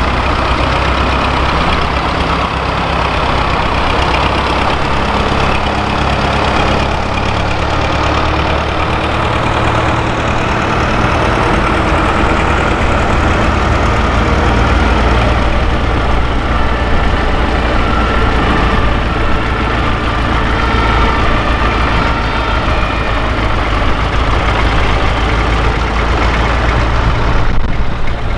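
Vintage tractor engines running as the tractors drive slowly past in a procession. The low engine note is steady and deepens from about a third of the way in as the next tractor draws near.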